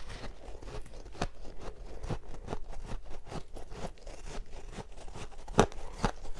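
Close-up crunching of freezer frost being bitten and chewed: irregular sharp crunches a fraction of a second apart, the loudest a little past five seconds in.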